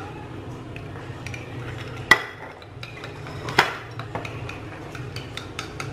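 Chopsticks beating eggs and chopped green onion in a ceramic bowl: quick light clicking against the bowl, with two louder knocks about two and three and a half seconds in.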